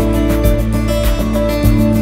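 Background music: strummed acoustic guitar over a steady beat.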